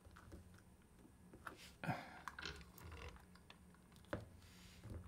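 Faint, scattered clicks and light rustling of small pliers and hand tools being handled on a workbench mat, with a brief louder rustle about two seconds in.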